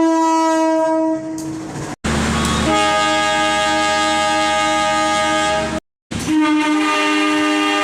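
Locomotive air horns sounding in long, steady blasts, three separate clips spliced together. The first blast is cut off near two seconds. The second comes in about a third of the way through, over a low engine rumble. The third follows a brief silent gap.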